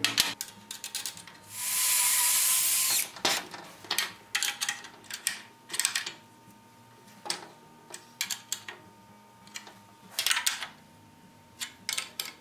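A Makita cordless drill runs steadily for about a second and a half, a couple of seconds in. Around it come many sharp clicks and knocks of wrenches and iron seat brackets being handled and bolted onto a wooden seat.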